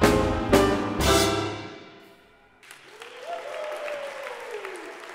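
A jazz quartet of alto saxophone, piano, double bass and drums plays three final accented chords about half a second apart, which ring out and die away. About two and a half seconds in the audience starts applauding, with one long falling cheer over the clapping.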